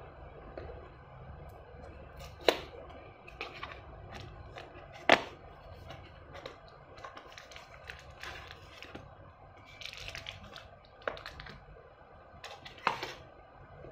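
Small cardboard blind box being opened by hand: a few sharp snaps and taps as the card flaps are pulled open, with light rustling of card and plastic packaging in between.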